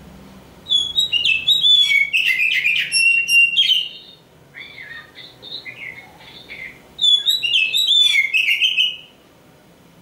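Oriental magpie-robin (kacer) singing: a loud burst of varied whistles and quick chattering notes about a second in, softer phrases in the middle, and another loud burst near the end.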